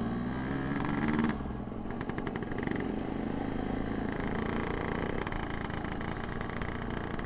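Yamaha RX-King 135cc two-stroke single-cylinder motorcycle engine running steadily while riding, its note rising slightly and then settling after about a second.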